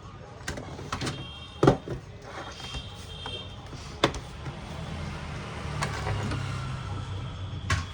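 Sharp clicks and knocks of a laptop's plastic case being handled and pressed together during reassembly, one knock about a second and a half in louder than the rest, over a low steady hum.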